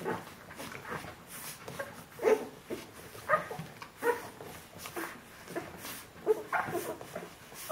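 Two-week-old Bernese Mountain Dog puppies whimpering and squeaking while nursing, in many short, irregular cries, the loudest a little over two and three seconds in.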